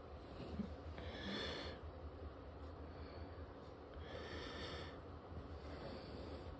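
A person's breathing close to the microphone: two slow breaths, about a second in and about four seconds in, over a low steady hum.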